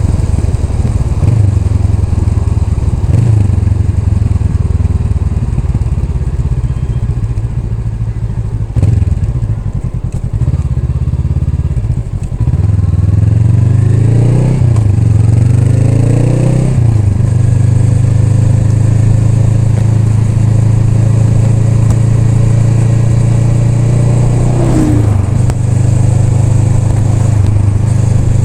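Honda Rebel 500's parallel-twin engine running under way. It goes quieter for a few seconds, then revs up through two gear changes, with the pitch rising and dropping back at each shift. It then holds a steady cruise, with another brief shift near the end.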